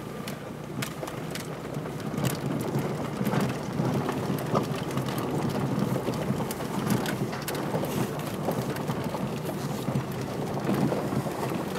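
Peugeot 306 rolling slowly over a loose gravel and stone track: tyres crunching and popping on stones in a scattered crackle over the engine's steady low hum, heard from inside the cabin.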